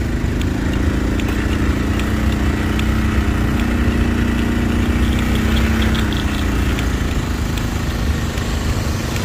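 Heavy truck's engine running as the truck and its long flatbed trailer pass slowly, a steady engine note that fades about eight seconds in, over low road rumble.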